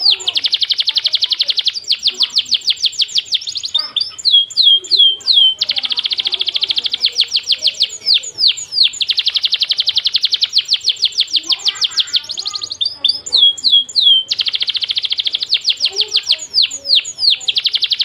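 Songbird song in the dense rapid-fire 'tembakan' style: long rolling trills of very fast repeated high notes. The trills are broken three times by short runs of quick downward-sweeping whistles.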